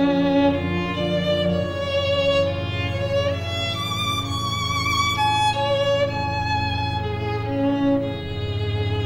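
Contemporary classical music: a violin plays long held notes, with a quick upward slide about three seconds in, over a sustained low accompaniment.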